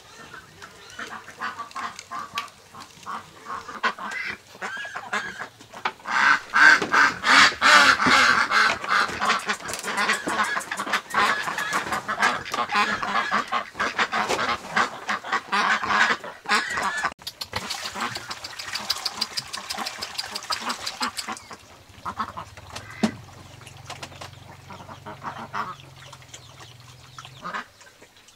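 A flock of ducks quacking in rapid, overlapping calls, loudest from about six to sixteen seconds in, then thinning out after about twenty seconds.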